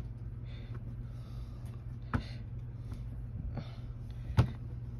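Clear acrylic stamp block being inked on an archival ink pad and pressed onto paper: a few light knocks, the sharpest a little over four seconds in, with soft rustles between, over a steady low hum.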